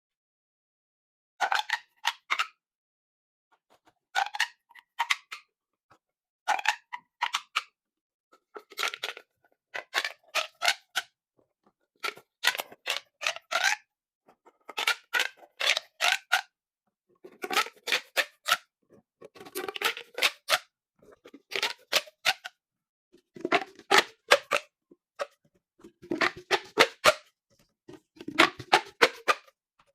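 Corrugated plastic pop tubes being stretched and pushed back, each pull setting off a quick run of pops and clicks. About a dozen runs come a couple of seconds apart, the later ones longer and fuller.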